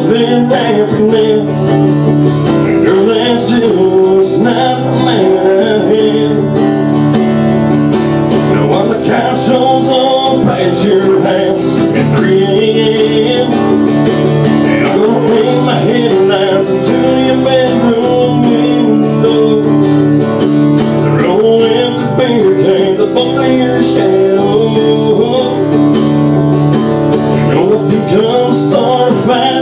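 Acoustic guitar strummed steadily, playing a country song live.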